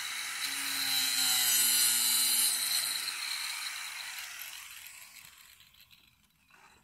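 Electric angle grinder with a cutting disc cutting through PVC pipe: a steady high whine over gritty cutting noise. After about three seconds it fades away over the next few seconds as the grinder winds down.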